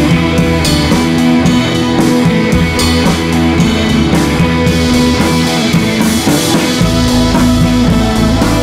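Background rock music with guitar and drums keeping a steady beat.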